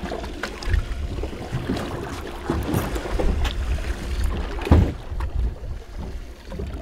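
Wind buffeting the microphone over the wash of sea water against a boat's hull, with a single thump about two-thirds of the way through.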